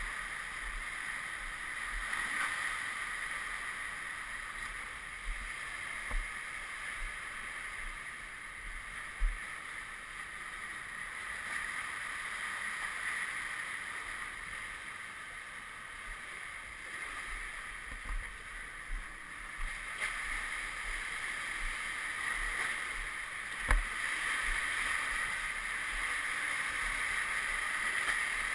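Steady rushing noise with a few short, sharp knocks scattered through it, the loudest about two-thirds of the way in.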